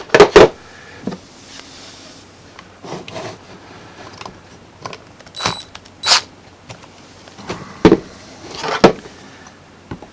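Scattered clicks, taps and scrapes from handling a plastic DeWalt 20V MAX battery pack case and a small T10 screwdriver while its case screws are fitted, with a few sharper knocks, the loudest just after the start.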